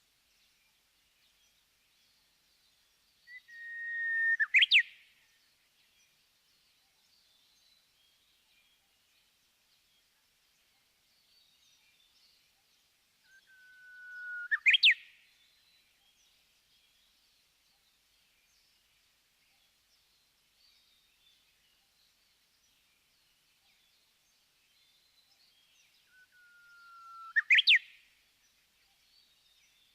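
Japanese bush warbler (uguisu) singing its "hoo-hokekyo" song three times, about twelve seconds apart: each song is a long held whistle that swells in loudness, then a quick high flourish. Faint small-bird chirping runs underneath.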